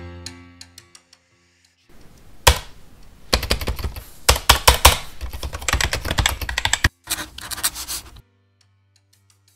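Rapid computer-keyboard typing clicks begin about two seconds in and run for about six seconds, with a brief pause near the seven-second mark, before stopping abruptly. Before the typing, a low music chord fades out in the first second.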